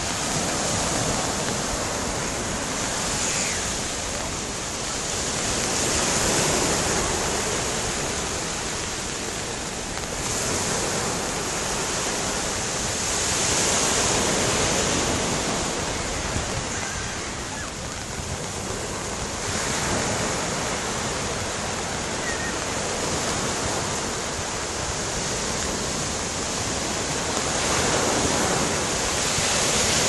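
Small waves breaking and washing up a sandy beach, the surf swelling and easing every seven or eight seconds.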